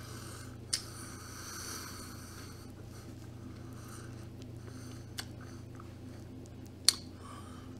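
A mouthful of cereal with milk being chewed close to the microphone, most audible in the first few seconds, over a steady low hum. A few sharp clicks cut in, the loudest about seven seconds in.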